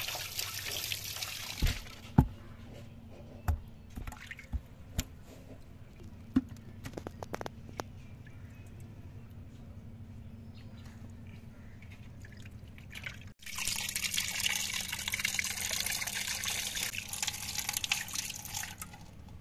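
Tap water running and splashing over hands rinsing cut hilsa fish pieces in an aluminium basin. In the middle the water stops and there are drips and a few sharp knocks. About two-thirds of the way through the running water starts again, louder.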